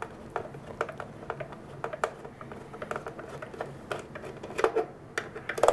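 Irregular light clicks and taps of hands handling the plastic case of a portable radio and a small screwdriver, with a few louder knocks near the end.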